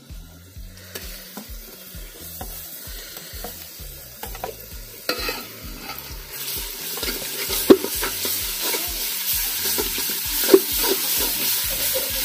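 Sliced onions frying in oil in an aluminium handi, stirred and scraped with a metal spoon as garlic paste is mixed in. The sizzle grows louder about halfway through, with a couple of sharp clinks of the spoon against the pot.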